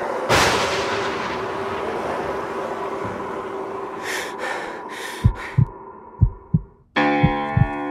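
Horror-style intro sound effects: a steady rain-like hiss with a low drone and a sudden crash just under a second in. About four seconds in come four short hissing bursts, then paired heartbeat thumps. Near the end, keyboard music comes in with the thumps still beating under it.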